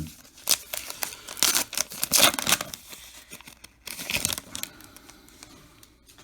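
Baseball card pack wrapper being torn open and crinkled: a quick run of rips in the first two and a half seconds and another near four seconds in, then faint rustling as the cards come out.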